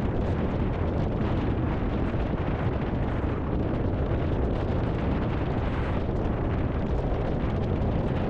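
Steady rumbling wind noise buffeting the microphone during a tornado-producing thunderstorm, sped up to double speed.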